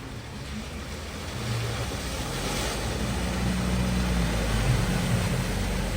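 A car driving through a flooded ford, its engine hum growing steadily louder as it comes nearer, over the wash of moving water.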